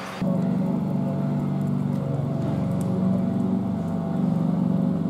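A steady, low-pitched motor hum that starts suddenly a moment in.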